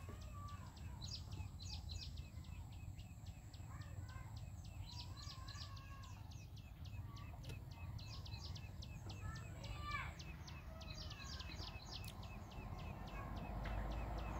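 A small animal chirping in a fast, even series of short high chirps, about four a second, over a low background rumble. A few softer, wavering calls come and go underneath.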